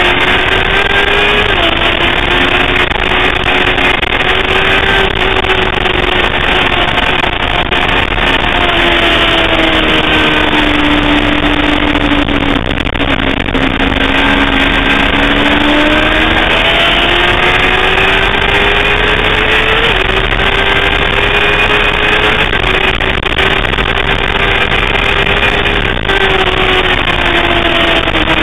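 Sportbike engine running hard, its pitch climbing and falling with the throttle, with several sudden drops in pitch at gear changes and a long slow dip and climb midway as the bike slows and picks up again. Heavy wind noise over the helmet or bike-mounted camera's microphone runs under it.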